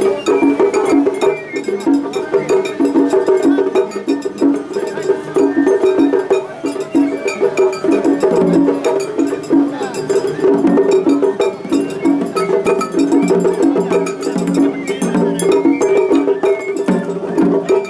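Japanese festival hayashi ensemble playing continuously: a repeating melodic figure over steady drum strokes and the clanging of a small hand gong.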